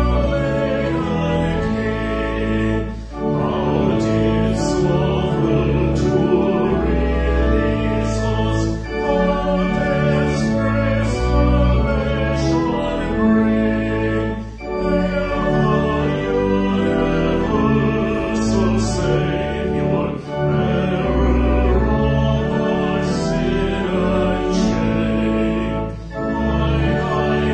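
Voices singing a slow hymn with keyboard accompaniment, in phrases of about six seconds with a short break between each.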